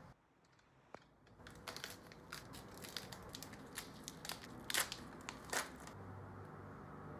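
A foil pack of ground coffee being torn open by hand, crinkling and crackling with a run of sharp rustles, loudest about three quarters of the way through.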